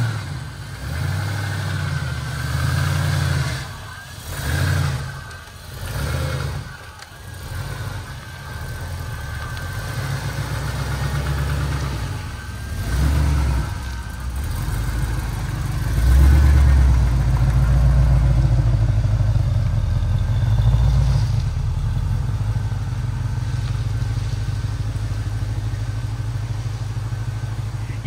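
Holden LS1 5.7-litre V8 engine running. Its low rumble rises and falls through the first half, then holds steadier and louder from about halfway.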